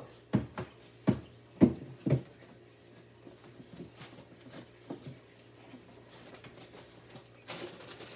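Groceries being handled and put away: four knocks in the first two seconds, lighter taps after, and a short rustle near the end.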